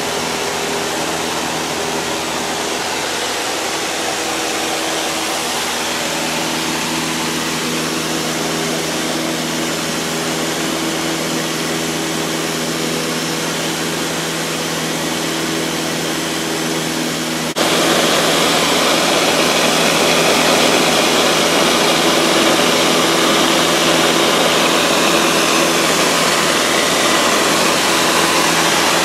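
Cabin noise of a 1960s four-seat light plane in flight: the piston engine and propeller drone steadily under a loud rush of airflow. About two-thirds of the way through it cuts abruptly to a louder, hissier stretch of the same drone.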